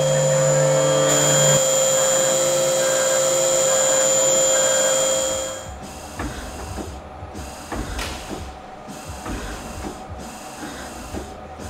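Optimum Optimill F80TC CNC milling machine cutting under flood coolant: a steady spindle whine over coolant spray hiss. About six seconds in it drops much quieter, leaving irregular clicks and knocks from the machine.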